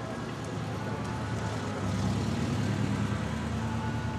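A motor vehicle engine running at idle: a steady low hum that swells slightly about halfway through.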